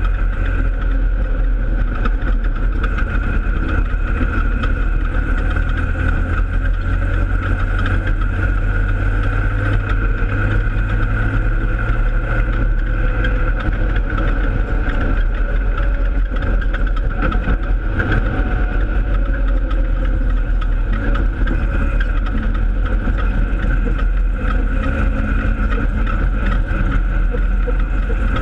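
Holden Torana open-sedan race car's engine running hard and steady, heard from inside the cabin while racing on the dirt track.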